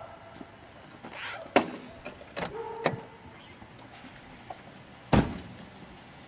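Sedan doors being opened and shut: a few latch clicks and knocks, then a car door slamming shut about five seconds in.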